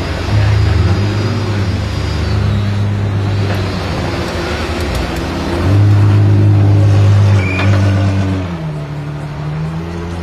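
Apollo Intensa Emozione's V12 running at low revs as the car creeps forward. The engine note is steady, growing louder twice under light throttle, with a brief dip in pitch near the end.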